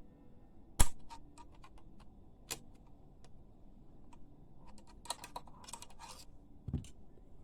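Irregular clicks and taps of a sewing machine's small parts being handled while tangled thread is worked free from inside it, with one loud click about a second in, a rapid cluster of clicks around five to six seconds, and a dull thump near the end.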